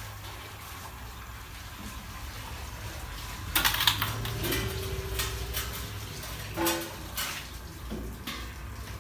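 Water running and splashing in a large steel dye vat as it is filled from a hose and cloth is handled in it, with several metal knocks and clanks against the vat, loudest about halfway through, over a steady low hum.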